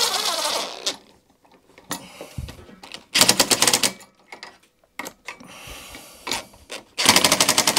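DeWalt 18V cordless impact driver hammering the carburettor mounting bolts home on a lawn mower engine, in three short bursts of rapid clicking, with a quieter burst between the second and third.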